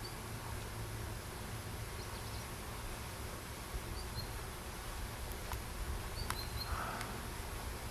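Outdoor ambience with a steady low hum. A few short, high two-note bird chirps come at the start, about four seconds in and again around six seconds in. A few sharp clicks and a brief rustle fall between about five and seven seconds in.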